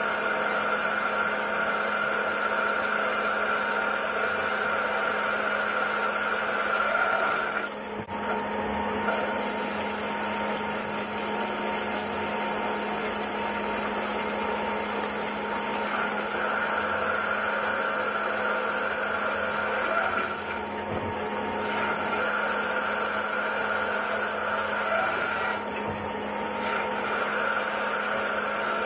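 CNC turning centre running as its tool cuts a spinning metal workpiece: a steady machine hum with a whine on top that drops out and comes back several times.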